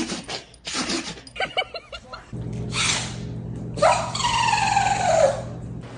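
Dogs sneezing: several short, sharp sneezes in the first two seconds and another about three seconds in. A steady low hum starts a little over two seconds in, and a long call that falls in pitch follows around the fourth second.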